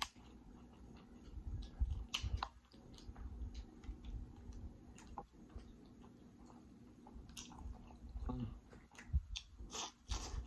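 Close-miked chewing and wet mouth sounds of a person eating lobster claw meat and seafood boil in butter sauce, with scattered short clicks as fingers handle the food. It gets louder near the end as more food goes into the mouth.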